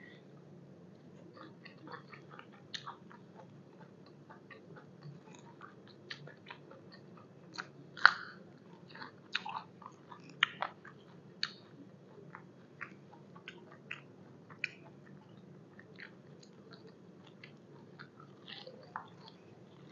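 Crunchy chewing of fresh raw vegetables: sharp, crisp crunches come at irregular intervals, loudest about eight seconds in.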